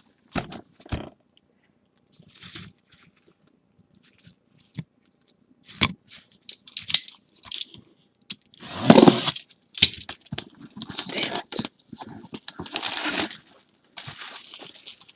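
Plastic shrink wrap crinkling and tearing and a cardboard box lid being handled as a sealed trading-card box is opened: a few light clicks, then irregular crackling bursts, loudest about nine seconds in.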